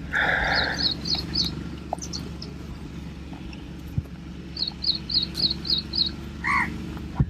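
A bird chirping in two quick runs of short, high repeated notes, about four a second, over a steady low hum. A short hissing burst comes at the very start.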